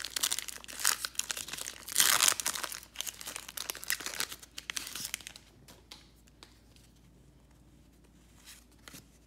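Foil wrapper of a Pokémon trading-card booster pack being torn open and crinkled by hand, loudest about two seconds in. The crackling dies down about five seconds in.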